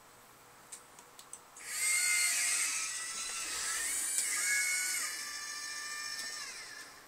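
The robot arm's electric drive motors whining as the arm moves through a programmed motion, the pitch gliding up and down as the motors speed up, hold and slow down. A few light clicks come before the whine starts, about two seconds in.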